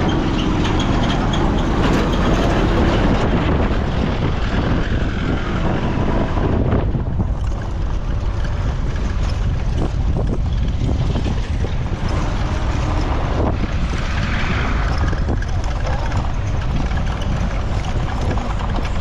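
Road traffic running past, with wind buffeting the microphone into a steady low rumble.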